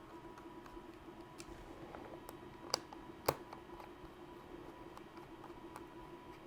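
Faint ticks and clicks of a small screwdriver driving screws back into a SimPad Plus case, with two sharper clicks about three seconds in.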